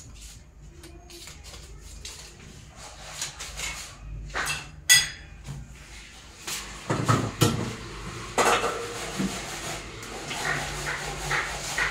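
Kitchen clatter of dishes and cutlery being handled: scattered clicks and knocks, a sharp ringing clink about five seconds in, and a couple of heavier knocks a few seconds later.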